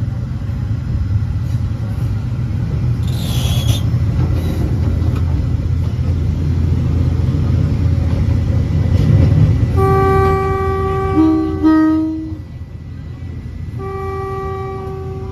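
Train running with a loud low rumble, and its horn sounding near the end: a held note about ten seconds in that steps down in pitch, then a second blast a couple of seconds later.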